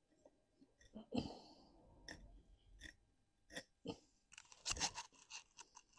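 Hand tool picking and scraping crumbly rotten wood out of a hollow in an old privet trunk: scattered small cracks and crunches, with a short scraping rasp about a second in and a denser run of crackling near the end.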